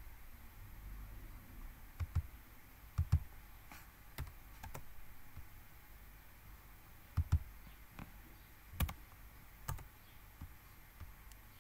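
Scattered clicks of a computer mouse and keyboard, about a dozen at irregular spacing, several in quick pairs.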